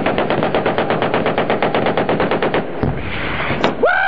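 Sustained automatic machine-gun fire in a long rapid burst, about ten rounds a second. It breaks off briefly near three seconds in, then firing resumes. A man yells near the end.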